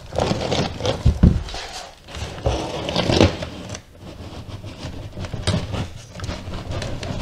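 Cardboard box sleeve being slid up off a packaged unit: irregular cardboard scraping and rubbing, with a low thump about a second in and another about three seconds in.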